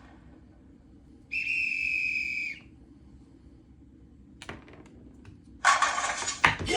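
A whistle blows once, one shrill steady tone lasting a little over a second. A few seconds later comes a faint knock. Near the end a loud burst of crowd cheering starts, with a low thump in it.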